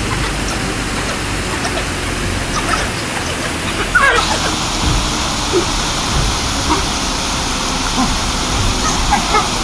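African wild dogs giving short, high-pitched squeaking calls over a steady rushing noise. The rushing noise changes abruptly about four seconds in, together with the loudest squeal.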